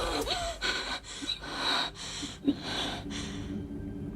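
A person breathing hard in a quick run of gasping breaths, then a faint steady low hum.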